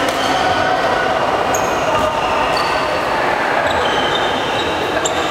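Badminton rally on a wooden hall court: a few sharp racket hits on the shuttlecock and short shoe squeaks, over a loud, steady hall noise.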